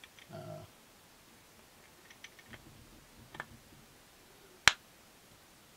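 Small metallic clicks and taps as a turned metal shaft is pushed and worked into the bore of a compressor wheel's hub, with one sharp, loud click a little over four and a half seconds in. The shaft is not an exact fit in the bore.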